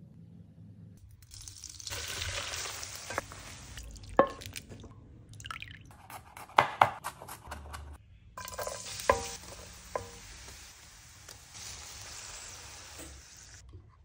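Prawns with their heads and shells frying in oil in a pan. There are two long stretches of sizzling, with a few sharp knocks of a utensil against the pan, loudest about halfway through.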